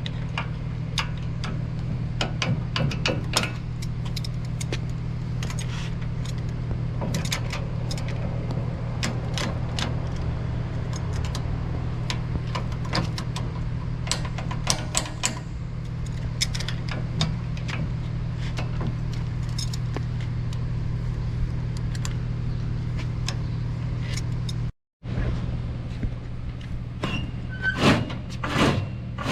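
Irregular metallic clinks and knocks of bolts, guards and hand tools as parts are bolted onto a combine header's sickle cutterbar, over a steady low machine hum.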